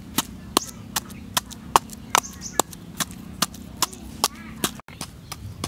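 Wooden pestle pounding chillies in a coconut-shell bowl, a steady knock about two and a half times a second.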